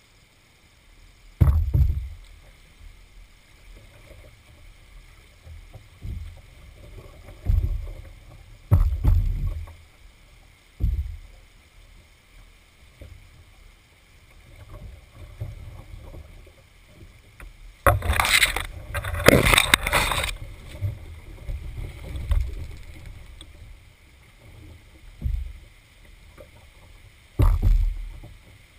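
Canoe being paddled through floodwater, heard from a camera on its bow: irregular low thumps and knocks from the paddle and hull every few seconds, with soft water sounds between. About two-thirds of the way through comes a louder stretch of scraping and splashing lasting about two seconds.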